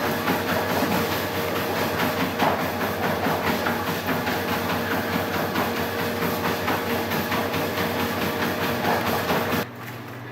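A machine running steadily with a steady hum and a fast, even clatter, starting and stopping abruptly; it cuts off near the end.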